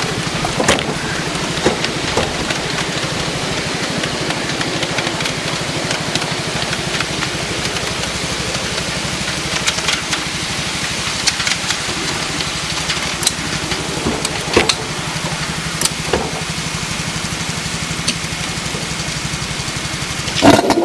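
Small engine of a 7½-inch-gauge riding locomotive idling steadily with a rapid, even throb. Scattered light clicks and clinks are heard, and a louder knock comes near the end.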